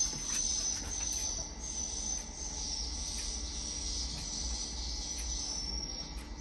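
Recorded swiftlet attraction calls playing through the swiftlet house's speakers, a steady high chirping, with a low hum underneath.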